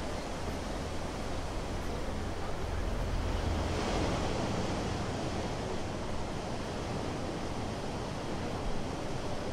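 Steady rush of sea surf, swelling once about four seconds in.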